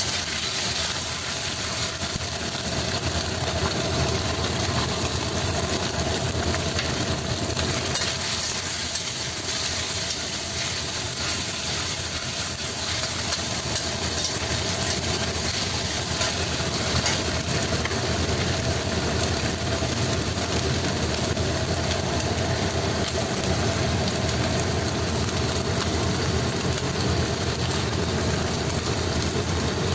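Steady stir-frying in a pan: an even sizzling hiss over a constant mechanical hum, such as a kitchen extractor fan.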